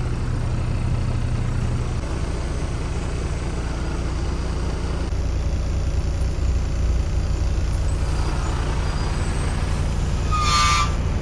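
Tata truck's diesel engine running under way, a steady low rumble heard from inside the cab, with a short, sharper sound near the end.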